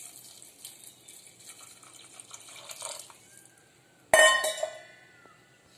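Water trickling from a pour into an aluminium pressure cooker of soaked chickpeas, faint at first. About four seconds in comes a sharp metallic clank that rings on briefly.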